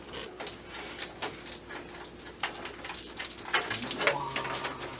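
Handling noises while a computer part is unpacked and positioned: a run of small clicks, taps and rustles, with a short vocal sound about three and a half seconds in.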